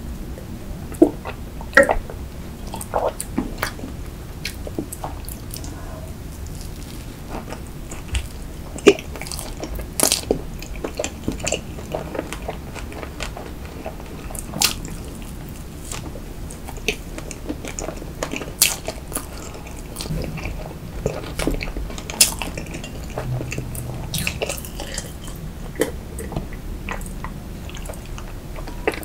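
Close-miked eating of soft sponge cake and cream: wet chewing, lip smacks and swallows, with many scattered sharp clicks. Milk is sipped and swallowed near the start.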